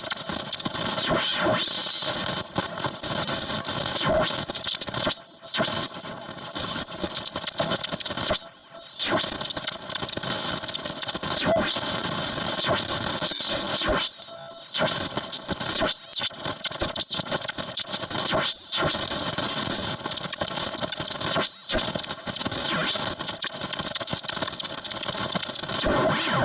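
Digital glitch sound effect: a dense, harsh wash of noise with many steady tones held under it, broken every few seconds by brief dropouts with short sweeping arcs.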